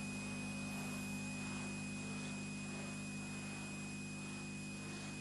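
Steady electrical mains hum with a thin, constant high tone and a faint hiss.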